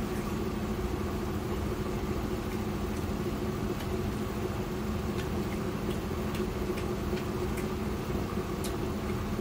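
Steady mechanical hum, even in level throughout, with a few faint short clicks of someone eating by hand and chewing.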